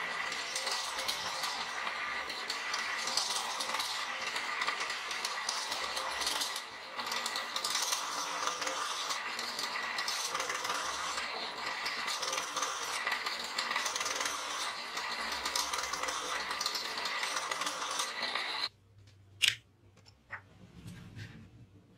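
A drill press runs while its bit drills and then countersinks holes in an aluminium angle: a steady motor whine under a rough cutting noise, with a brief dip about seven seconds in. The sound cuts off abruptly near the end. A few sharp clicks and taps of aluminium pieces being handled on the wooden bench follow, the loudest one just after the cut.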